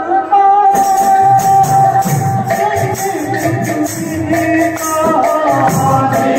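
Kirtan music: long held sung notes over a two-headed barrel drum (khol/mridanga) and jingling hand cymbals keeping a steady quick beat.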